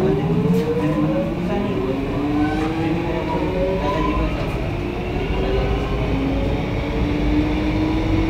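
Xtrapolis electric suburban train accelerating away from a station, heard from inside the front carriage: its traction motors whine in several tones that rise in pitch together, drop back about halfway through and climb again, over a low rumble of wheels on the rails.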